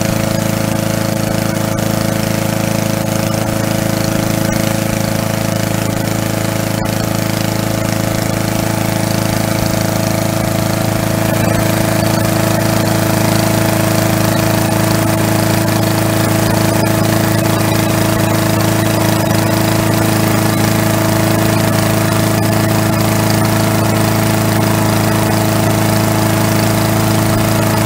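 Small gasoline engine of a walk-behind lawn mower running steadily while the mower stands still, getting slightly louder a little under halfway through.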